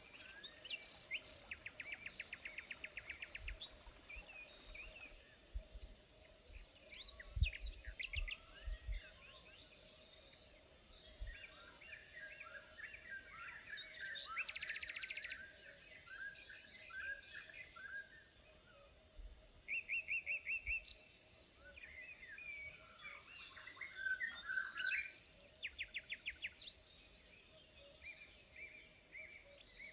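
Several birds singing and calling together: short chirps and whistles with repeated fast trills, over a faint steady hum, with a few low thumps about a third of the way through.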